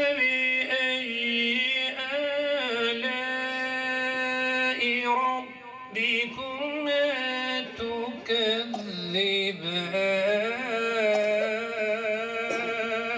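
A man reciting the Quran in a slow, melodic chanted style into a microphone. He holds long, ornamented notes in two long phrases, with a brief pause between them about halfway through.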